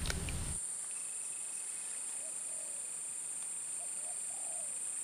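Steady high-pitched insect drone with a thinner continuous whine beneath it and a few faint short calls. A low rumble of handling noise cuts off about half a second in.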